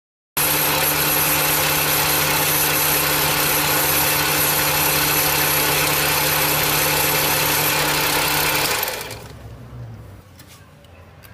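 Sieg C2 mini lathe running at speed with a steady hum and a high whine. It starts abruptly and spins down about nine seconds in.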